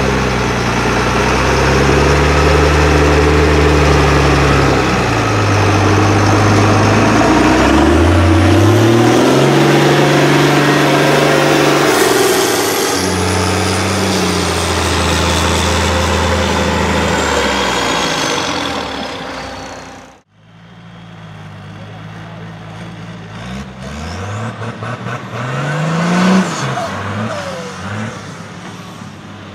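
Engine of a MAN 6x6 trial truck revving hard and dropping back again and again under load. After a sudden cut, a quieter engine of a Mercedes Unimog 404 trial prototype takes over and revs up sharply several times near the end.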